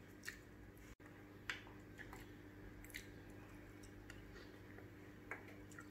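Quiet eating sounds as a person takes soup from a spoon: a few faint, scattered clicks of spoon and mouth over near-silent room tone.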